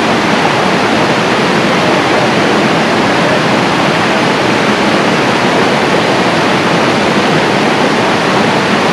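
Rushing water, such as a fast creek or waterfall, making a loud, steady, even rush with no let-up.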